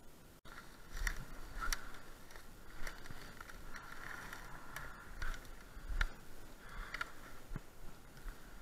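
Scattered sharp clicks and rustling from hands handling things among snow-covered branches, with a low rumble of wind on the microphone.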